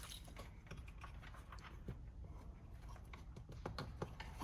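Faint scattered clicks and rustles of a wire being handled and fed up along the rocker panel toward the firewall.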